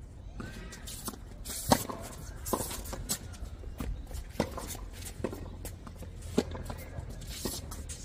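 Tennis balls struck with rackets and bouncing on a hard court: a string of sharp pops about once a second, the loudest nearly two seconds in.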